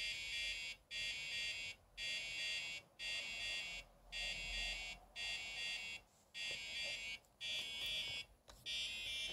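Electronic beeper of a SciSys Chess Champion Mark V chess computer sounding a series of about nine buzzy beeps, each about three quarters of a second long with short gaps, one a little longer in the middle.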